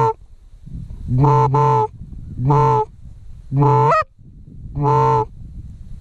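Goose call blown by a hunter: loud, regular honks about once a second, a double note early on and a couple of notes breaking sharply upward at the end, calling to an incoming Canada goose.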